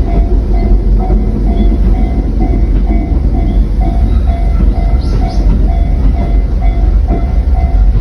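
Japanese level crossing warning bell ringing at about two strokes a second, over the heavy low rumble and clatter of rail cars rolling through the crossing during shunting at a rolling-stock works.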